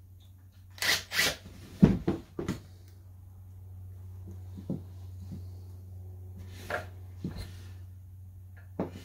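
Wooden stretcher-frame pieces and a cordless impact driver being handled on a work surface: scattered knocks and clatters, a cluster in the first couple of seconds and a few more later, over a steady low hum.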